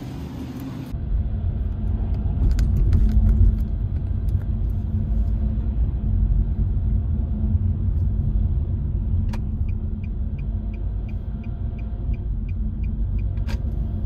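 Car cabin road noise while driving: a steady low rumble of engine and tyres, starting about a second in. A regular light ticking, about three a second, runs through the second half.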